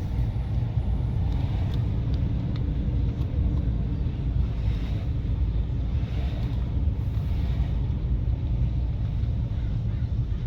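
Car driving along a road: steady low road and engine rumble.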